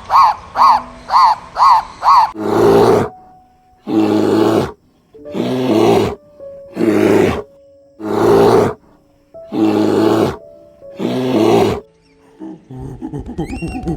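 An animal calling: a quick run of short, repeated calls in the first two seconds, then six long, rough calls spaced about a second and a half apart, over faint background music.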